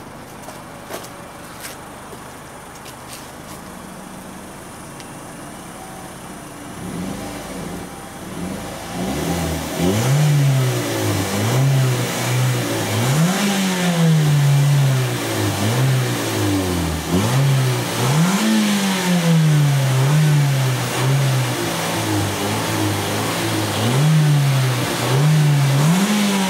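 Mazda6 Takuya engine heard from behind the car at the exhaust. After several quieter seconds, it is revved in repeated short blips from about ten seconds in, the pitch rising quickly and falling back each time.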